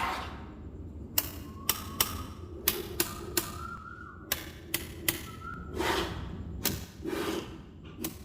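Small magnetic metal balls snapping together one at a time: about a dozen sharp, irregular clicks, some with a faint metallic ring, between soft rustles of handling.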